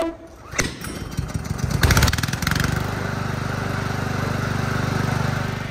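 Oleo-Mac GV53TK lawn mower's four-stroke engine starting. A knock and a few uneven strokes come first; it catches about two and a half seconds in and then runs steadily.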